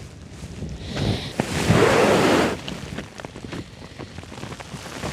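Strong gusty wind on a mountain summit, swelling into a loud gust about two seconds in and then easing, with scattered light ticks through it.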